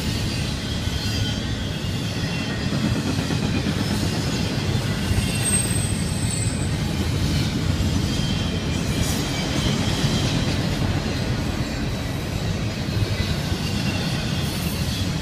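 Double-stack container well cars of a freight train rolling past: a steady rumble of steel wheels on rail, with faint high-pitched wheel squeal now and then.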